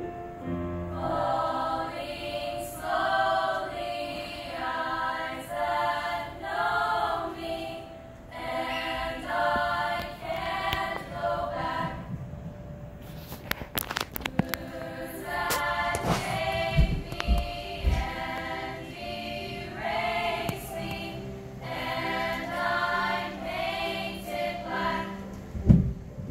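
A female choir singing in phrases, breaking off briefly about halfway through before carrying on. A few sharp clicks and low bumps come just after the break.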